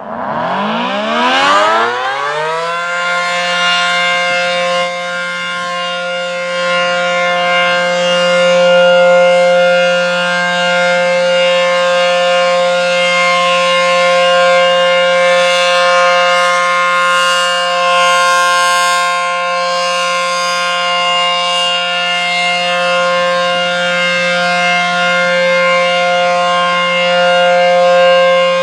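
ACA outdoor warning siren winding up from rest, rising in pitch over about two and a half seconds, then holding one loud steady tone: the Alert signal of a siren test.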